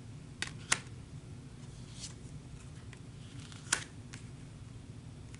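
Tarot cards being handled and laid on the spread: a few short, sharp card clicks and taps, the loudest about a second in and just before four seconds in, over a faint low steady hum.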